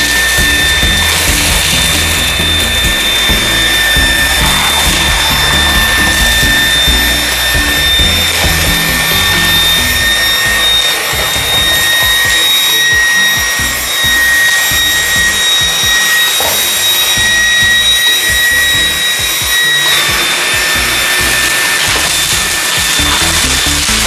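Xiaomi Dreame V11 cordless stick vacuum running on its third (highest) suction level, a steady high motor whine over a rush of air; the whine shifts slightly near the end.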